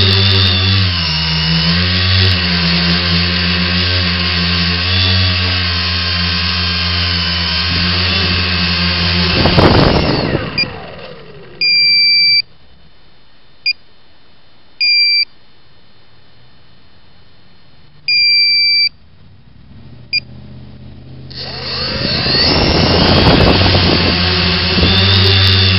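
X900 tricopter's brushless motors and propellers running, their pitch wavering constantly as the craft wobbles with the KK2 controller's I gain set to zero. About ten seconds in the motors spool down. In the quiet that follows there are four long electronic beeps and a few ticks, and about 21 seconds in the motors spool back up to a steady run.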